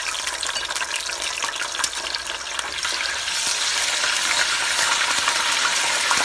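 Garlic-ginger paste sizzling as it fries in hot oil and ghee, stirred with a wooden spatula that clicks against the pot. The sizzle grows louder about three seconds in.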